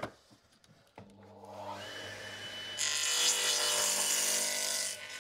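Radial arm saw switched on about a second in, its motor humming steadily. From about two seconds later the freshly sharpened blade cuts through a piece of chestnut for about two seconds, the loudest part, then the saw runs on free.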